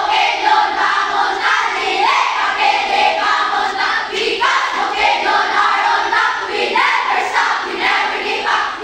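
A squad of schoolchildren chanting a yell in unison, loud and steady, in short repeated phrases.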